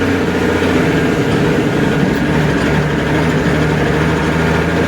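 A heavy engine running steadily at a constant speed, its low hum holding even.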